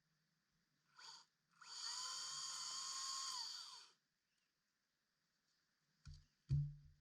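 Makita DUC405 36-volt cordless electric chainsaw triggered briefly, then run for about two and a half seconds with a steady motor and chain whine before it is released and winds down. Two low thumps near the end.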